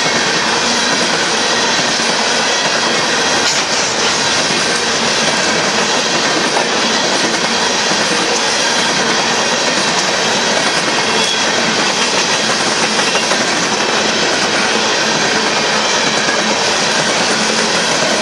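Union Pacific coal train's hopper cars rolling past at speed: a steady, loud rumble and clatter of steel wheels on rail, with a faint high wheel squeal now and then.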